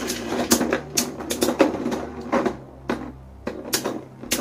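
Two Takara Tomy Beyblade Burst tops, Death Solomon and a Hollow-ring Diabolos attack combination, spinning in a plastic stadium. They hit each other over and over, making irregular sharp plastic clacks a few times a second over a steady low whir.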